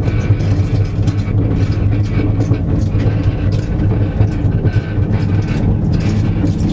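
The camera obscura cart rolls along a paved road: a steady, loud low hum with frequent rattling and knocks.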